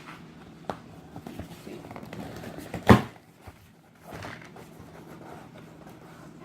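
Cardboard box being handled and opened: scattered small clicks and rustling, with one sharp, loud snap about three seconds in.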